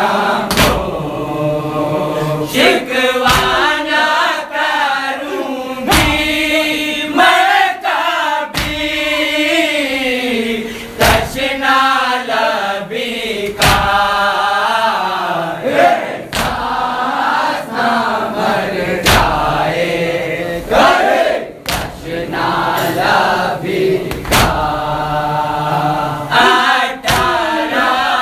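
A group of men chanting a noha together in a slow, mournful melody, with chest-beating (matam) strokes landing in unison roughly every two seconds.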